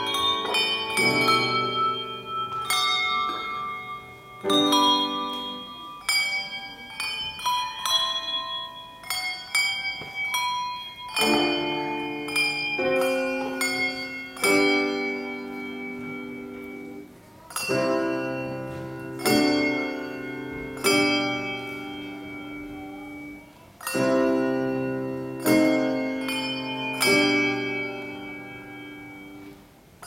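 Handbell ensemble playing a tune: chords of several bells struck together and left ringing, each dying away before the next group of strikes.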